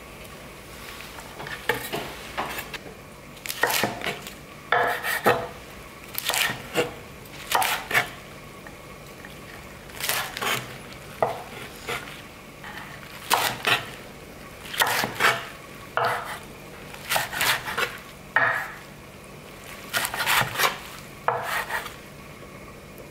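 Chef's knife chopping fresh sea mustard on a wooden cutting board, in short runs of a few quick strokes every second or two, with brief pauses between.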